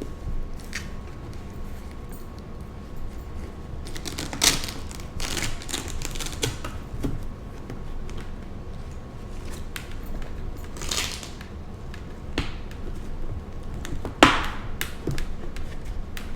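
Motorcycle helmet being handled and its padding pressed back into place: scattered plastic clicks and short rustles, with the sharpest click about fourteen seconds in.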